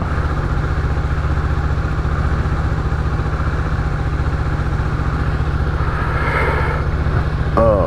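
2018 Honda Gold Wing's flat-six engine idling steadily, with an even low pulse.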